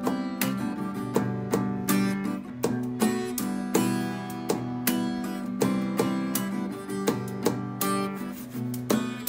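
Acoustic guitar strummed in an instrumental passage, with sharp percussion taps keeping time about twice a second.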